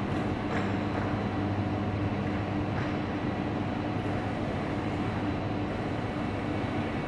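Electric operator of an industrial overhead sectional dock door running as the door rises: a steady low mechanical hum over a constant background noise.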